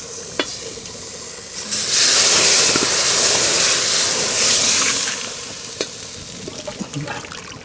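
Food frying in a pan of hot oil, sizzling steadily, with a much louder sizzle for about three seconds starting just under two seconds in. Two sharp clinks, one near the start and one near the end.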